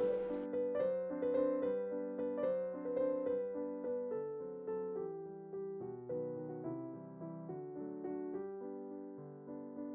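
Background music: gentle piano notes played at an easy pace, slowly getting quieter toward the end.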